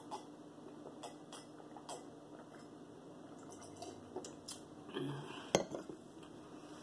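Water being drunk from a cut-crystal stemmed glass: soft swallowing clicks, then a short vocal sound and one sharp clink at about five and a half seconds as the glass is set down on the glass tabletop.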